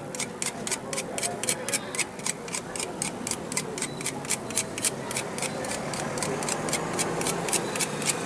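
Steady rapid ticking, about four ticks a second, typical of a microwave oven's mechanical timer running, over a low steady hum.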